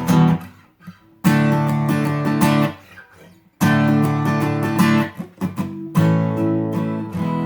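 Acoustic guitar strumming chords in short phrases, with brief silent stops between them, and the last chord carrying on to the end.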